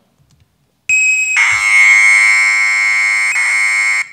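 Commodore 64 datasette tape data played back as audio: about a second in, one steady high tone for half a second, then a dense buzz of many tones until it cuts off suddenly near the end. It is data encoded in sound by audio frequency shift keying, the same technique that makes modems and fax machines sound alike.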